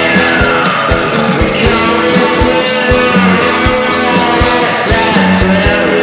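Instrumental rock music: guitar with gliding notes over a steady drum beat, no vocals.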